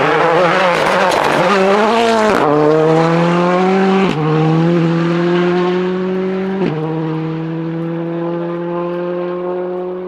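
Ford Fiesta rally car's engine coming out of a tight corner with the pitch wavering, then accelerating hard away. It changes up three times, at about two and a half, four and six and a half seconds in, and fades as it goes.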